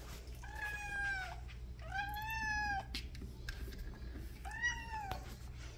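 Domestic cat meowing three times, each call under a second, the second the longest and loudest: demand meows at a closed door, asking to be let out.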